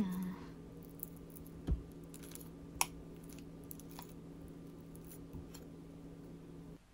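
Metal spoon mashing ripe bananas in a ceramic bowl: quiet mashing with a soft knock about two seconds in and a few scattered clicks of the spoon on the bowl, over a steady low hum.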